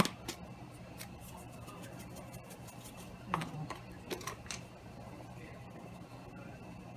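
A plastic spice shaker of dried thyme being shaken: a run of light clicks and ticks for about the first four or five seconds, over a steady low hum.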